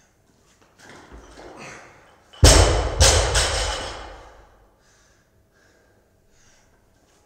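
A loaded barbell with bumper plates dropped to the floor after a clean: a heavy thud, a second thud about half a second later as it bounces, and a ringing rattle that dies away over a couple of seconds. Before the drop there is a second or so of heavy breathing and movement.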